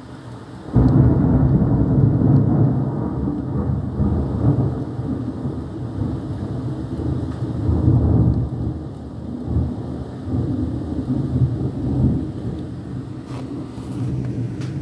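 Thunder: a sudden loud clap about a second in, then a long low rumble that rolls on, swelling and fading, with rain beneath it.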